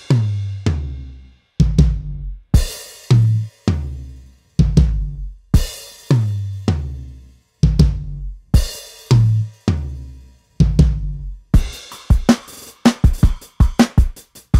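EZdrummer 3 sampled acoustic drum kit playing back a groove. Heavy kick hits from a 22-inch Gretsch Broadkaster kick, each with a long deep decay, come together with snare and cymbal hits about once a second. Near the end it switches to a busier pattern of quick, lighter hits.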